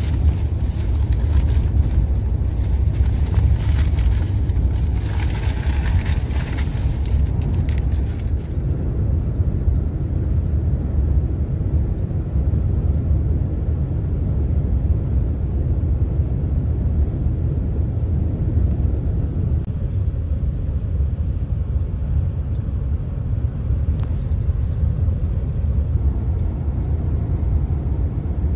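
Steady low road and engine rumble heard from inside a moving vehicle on a highway. A hiss over the top drops away suddenly about eight seconds in.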